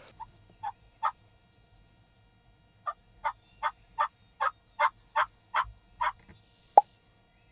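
Turkey yelping: three single yelps, then a steady run of about nine yelps at about two and a half a second. A single sharp click follows near the end.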